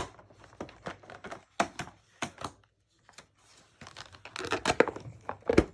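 Crinkling, rustling and tearing of an advent calendar's cardboard door and wrapping being opened by hand, in irregular short crackles, with a denser, louder flurry near the end.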